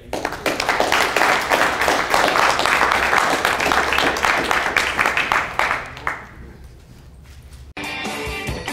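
Audience applauding, a dense patter of many hands clapping that dies away after about six seconds. Near the end, music starts abruptly.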